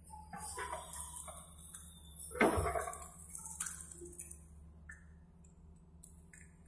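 Excavator diesel engine idling low and steady. Over it come a few short knocks and clinks, the loudest about two and a half seconds in.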